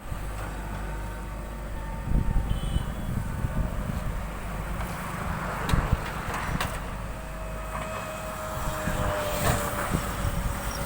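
JCB 3DX backhoe loader's diesel engine running steadily while working, with several sharp knocks and clanks of the machine.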